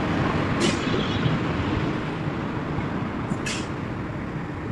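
Steady rumbling background noise with two short high crackles, about a second in and near the end.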